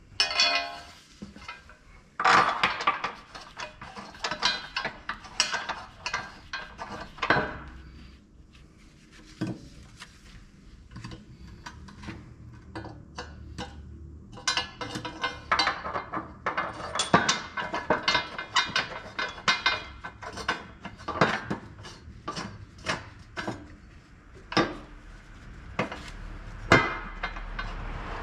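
Metal parts and hand tools clinking and knocking together in irregular sharp clicks, with a quieter stretch in the middle: hands-on work on a car's front suspension member, bolts and washers.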